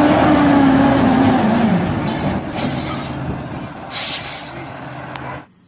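Rear-loading garbage truck driving past, its engine note falling over the first couple of seconds. A brief high squeal comes midway and a burst of hiss about four seconds in, typical of the truck's air brakes. The sound cuts off suddenly near the end.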